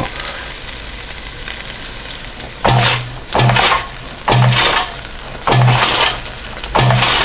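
Cook's Essentials air fryer basket of hot breaded shrimp and French fries shaken five times, each shake a short rattling rush of the food tumbling in the basket. A steady sizzling hiss runs between the shakes.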